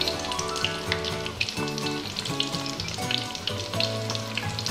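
Chicken karaage in okara-powder coating deep-frying in oil: a steady, dense crackling sizzle. Background music with held notes that change every half second or so plays along.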